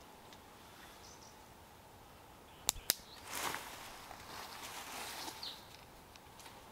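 Quiet forest ambience with a few faint bird chirps. About two and a half seconds in come two sharp snaps in quick succession, like twigs breaking, followed by about two seconds of rustling through leaves and brush.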